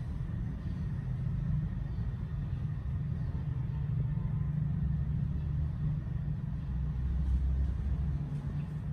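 Low, steady rumble.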